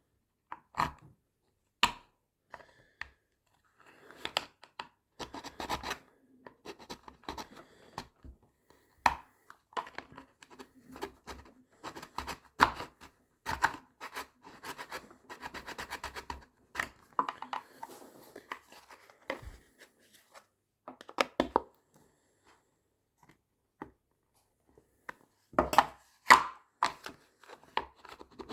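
Hand tools scraping and cutting at a hard plastic case: irregular rasping strokes mixed with short clicks and knocks, pausing for a few seconds past the middle and coming back with louder strokes near the end.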